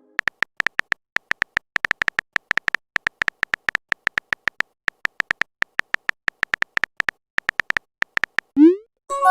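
Typing sound effect: a long run of short electronic tick-beeps, all on one pitch and irregularly spaced at about five or six a second. Near the end comes a quick rising blip, then a chiming message tone begins.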